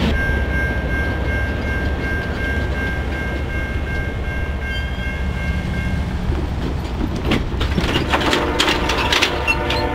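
Freight train rolling slowly away on a curve. For the first six seconds a steady, high two-note wheel squeal rings out, then the wheels clack over the rail joints, and near the end the locomotive's horn sounds.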